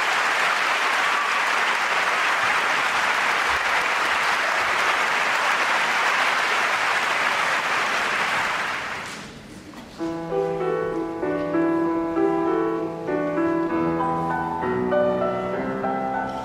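Audience applauding, dying away about nine seconds in. About a second later, a grand piano begins playing an introduction.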